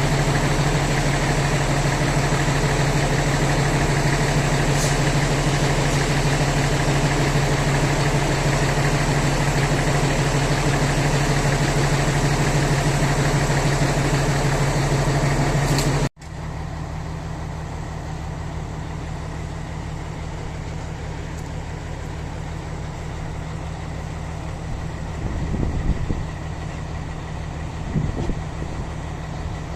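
Heavy diesel truck engine running steadily. About halfway through the sound cuts off abruptly and picks up again as a quieter steady engine run, with two brief louder swells near the end.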